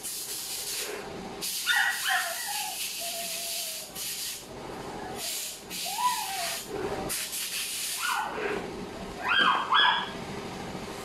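A dog whining and yelping in short rising-and-falling cries, about three times, between several short bursts of hissing.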